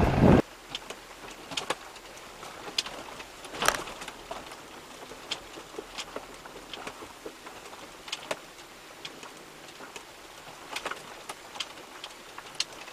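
A loud rush of wind and engine noise cuts off abruptly just after the start. Then faint, irregular clicks and ticks, about one or two a second, inside a 4x4 driving slowly over a stony gravel track, heard through a dashcam's microphone.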